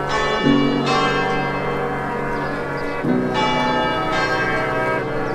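Background music: chiming, bell-like notes over sustained chords that change about every two and a half seconds.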